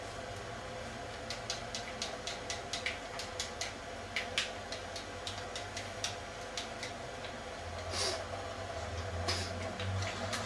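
Game controller buttons clicking in quick, irregular runs, over a steady faint hum; a short rustle about eight seconds in.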